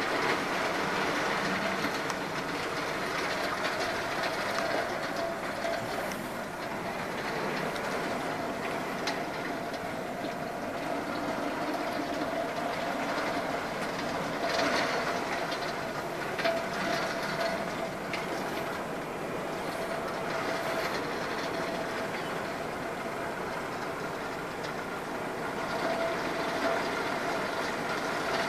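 Heavy rain heard through a window glass, a steady wash of noise with a faint steady hum under it.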